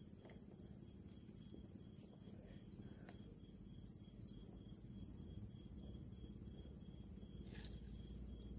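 Faint, steady chirring of crickets or other insects, several high-pitched tones held without a break, over a low background rumble.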